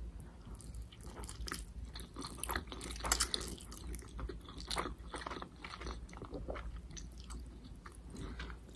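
Close-up chewing of instant noodles with vegetables: irregular wet smacking and soft crunches, busiest a few seconds in.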